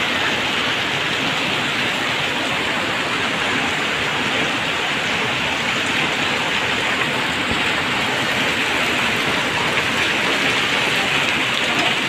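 Heavy rain mixed with hail falling steadily on wet paved ground, a dense, even hiss.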